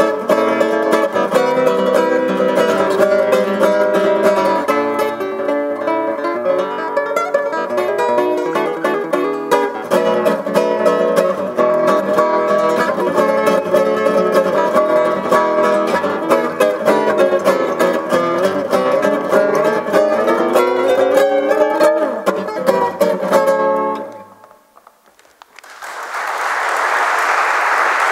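Nylon-string classical guitar played solo, many quick plucked notes that end sharply near the end of the piece. After a short pause, the audience applauds.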